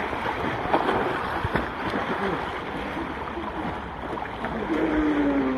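Pool water splashing and sloshing as several swimmers thrash and wade about, a steady wash of small splashes.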